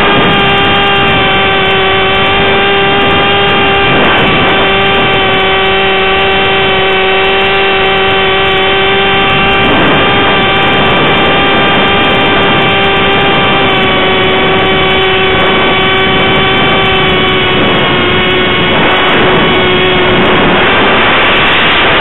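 Wing Dragon RC plane's electric motor and propeller whining at a steady pitch, heard close up from on board, with wind rushing past that swells briefly a few times as the plane manoeuvres.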